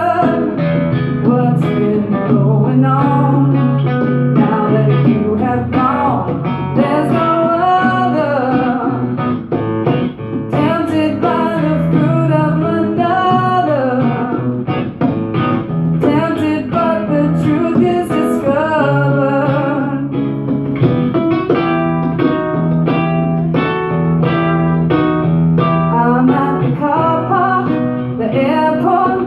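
Live acoustic duo: a nylon-string acoustic-electric guitar played fingerstyle with a woman singing and hand-played congas keeping the rhythm.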